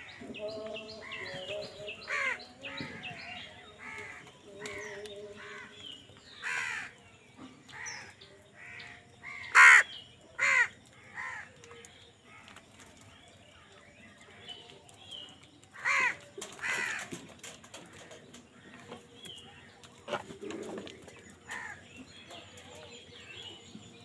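A flock of house crows cawing, many short harsh calls overlapping from several birds, with the loudest caws about ten seconds in and again around sixteen seconds.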